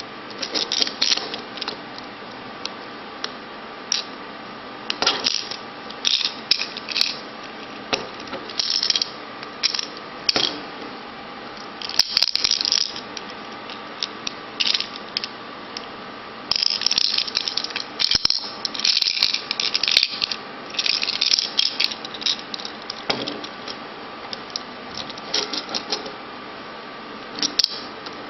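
Small hard-plastic Hello Kitty candy container being twisted and pulled at while it stays shut, with plastic clicking and candies rattling inside in irregular bursts, a longer run of rattling just past the middle.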